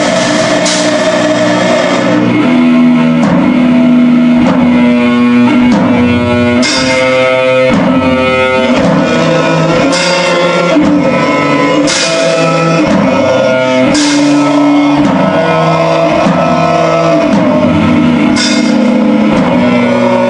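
Black metal band playing: distorted electric guitars over drums, with cymbal crashes every few seconds.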